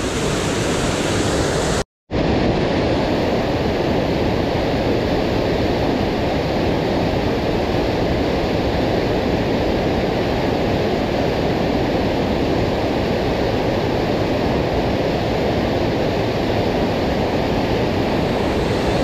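Muddy river in flood rushing through white-water rapids: a steady rush of water. The sound drops out for a split second about two seconds in.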